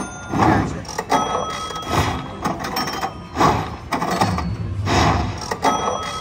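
Slot machine electronic tones and chimes over a background of voices.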